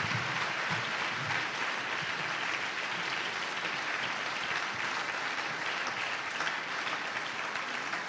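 Audience in a large lecture hall applauding steadily, the clapping tapering slightly toward the end.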